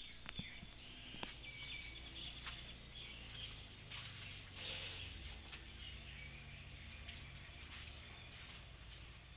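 Small birds chirping outside: repeated short, falling chirps and calls over a steady low hum, with a brief rustling noise about five seconds in.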